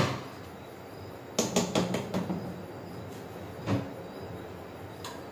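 Metal kitchen utensils knocking and clinking: one sharp knock at the start, a quick run of clicks about a second and a half in, then single knocks.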